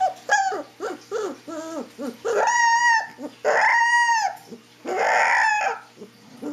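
Siberian husky puppy howling: a quick string of short rising and falling yips, then two long arched howls and a rougher, hoarser one.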